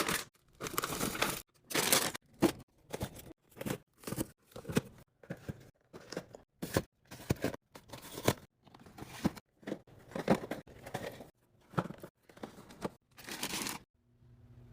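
A quick series of short packaging-handling sounds, plastic wrappers crinkling and tearing as groceries are unpacked, each one cut off sharply.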